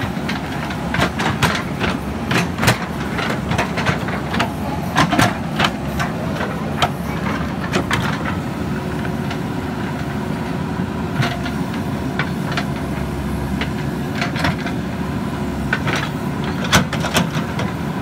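JCB 3DX backhoe loader's diesel engine running steadily while the backhoe digs soil, with frequent short clanks and knocks from the working arm and bucket.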